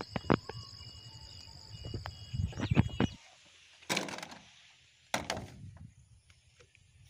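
Scattered knocks and rustling of things being handled: a few sharp knocks near the start and a louder cluster just before three seconds in, then two single knocks about a second apart, plausibly long black plastic irrigation pipes being picked up and set down.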